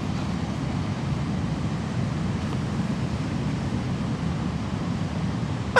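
Strong wind rumbling steadily on the microphone, a low, even roar with no break.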